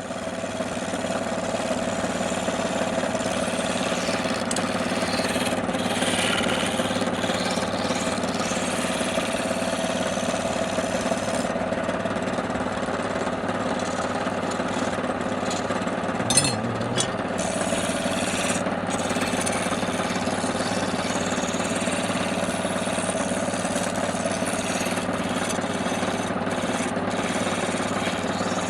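Wood lathe running at a steady speed, with a turning tool scraping the spinning work; the higher hiss of the cut changes as the tool moves. A short sharp click about 16 seconds in.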